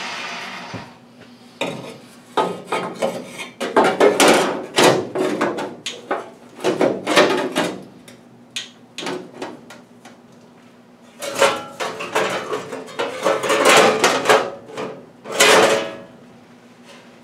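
Sheet-steel firewall panel clanking, rattling and scraping against the car body as it is worked into place by hand, in irregular bursts with a short lull in the middle.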